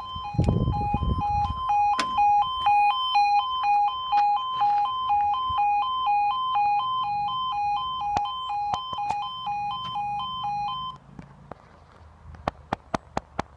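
Level crossing's electronic two-tone warning alarm, rapidly alternating between two pitches, then stopping about eleven seconds in. A brief low rumble sounds near the start, and a few sharp clicks come near the end.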